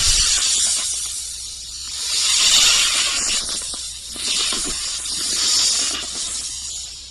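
Loud hissing that swells and fades in three long waves.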